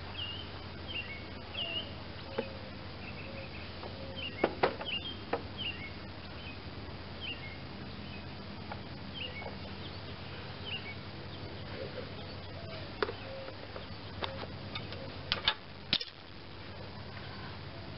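Small birds chirping over a steady low hum, with a few sharp clicks and taps about four seconds in, near the middle and just before the end.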